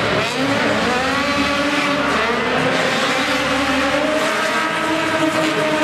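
Stunt car engine running hard at high revs, its pitch rising and falling as the throttle changes.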